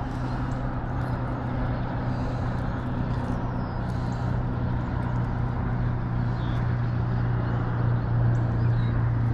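A steady low mechanical hum, like a motor running, over an even hiss; it swells a little near the end.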